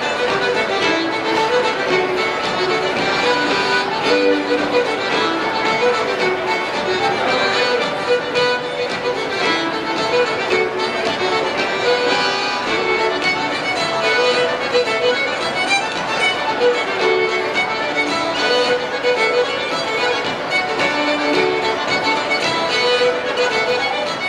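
A band playing live music, with a fiddle carrying a stepping melody.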